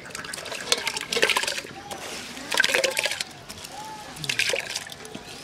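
Wet, washed rice tipped from a steel bowl into a pot of water and pushed in by hand, splashing and sloshing in three or four short bursts.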